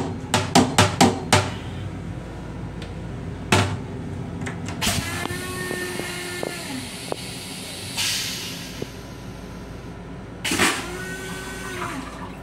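A quick run of plastic knocks as the train toilet's lid is handled. Then the M7 railcar toilet's flush runs twice: each time a motor whine rises and falls for about two seconds, followed by a short hiss. A steady train rumble runs underneath.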